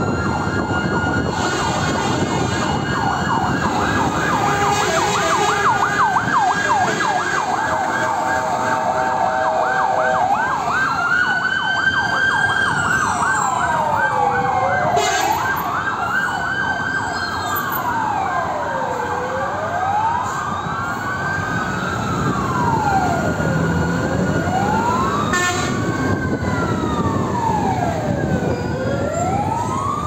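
Several fire truck sirens sounding together, in celebration rather than for an emergency: a fast yelp for about the first ten seconds, then slow wails rising and falling about every five seconds, over the trucks' engine and traffic noise.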